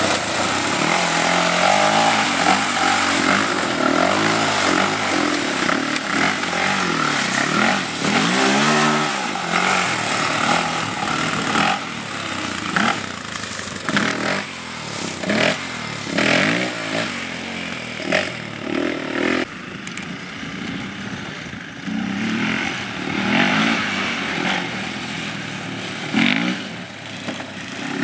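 Sport ATV engine revving up and down again and again as the quad is thrown around in tight slides and spins.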